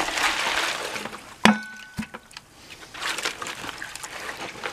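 Water poured from a plastic bucket into a tub of cement mix for about a second, then a sharp knock, followed by hands working the wet concrete mix in the plastic tub. The mix is being made wetter, close to too wet.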